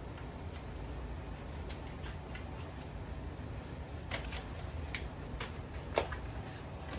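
Light crinkles and clicks of gravy mix packets being torn open and emptied into a pot, with one sharper click about six seconds in, over a low steady hum.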